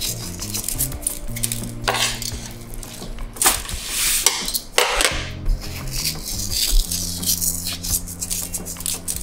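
Metal tongs clinking and scraping on a stainless steel tray as a raw ribeye steak is turned over on it, in several short clatters, over background music.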